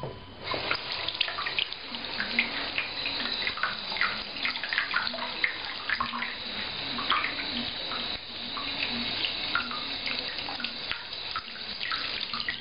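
Water gurgling and splashing, with many small irregular pops and crackles.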